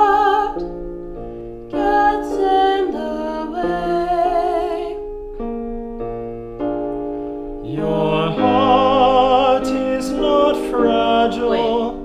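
A woman singing a slow song with vibrato over piano accompaniment. Her voice swells louder on held notes about eight seconds in.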